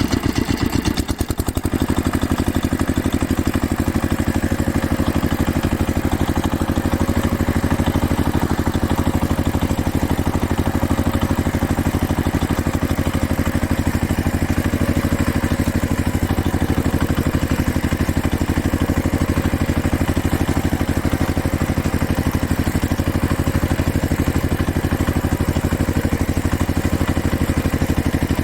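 A small motor running steadily with a fast, even pulse, changing briefly about a second in.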